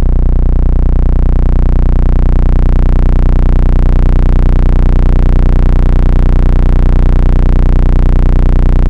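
Skar Audio subwoofers in a car's cabin playing one deep, sustained bass note from a bass track at very high level, holding steady with a buzzing stack of overtones.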